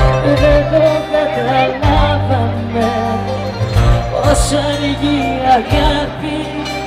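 A band playing a Greek pop song live, with a strong, steady bass line under a wavering melodic line that includes a singing voice.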